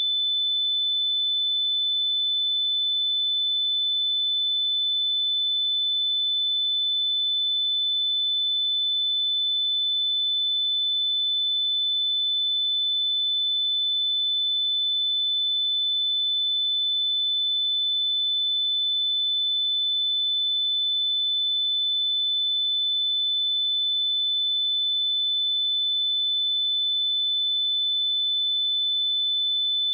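A steady pure sine-wave test tone at 3511 Hz, a single high-pitched whistle-like note held at constant level, used for testing speakers and headphones.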